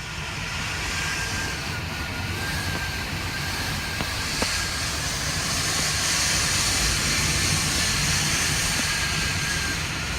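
Strong hurricane wind rushing steadily and buffeting the microphone, with a faint whistle coming and going.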